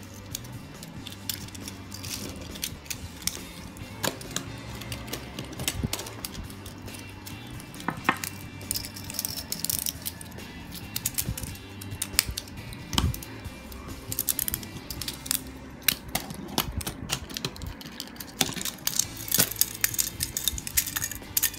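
Small plastic transforming toy cars clicking as their parts are twisted and folded by hand, many short irregular clicks, over background music.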